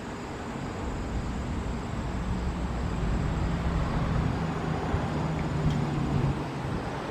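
A motor vehicle passing over outdoor wind rumble: its low hum swells for a few seconds, dropping slightly in pitch, then fades.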